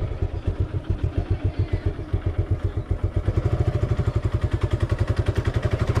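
Suzuki Gixxer's single-cylinder engine with its even, steady exhaust beat, first at a standstill and then pulling away slowly in low gear, the beat quickening slightly from about halfway through.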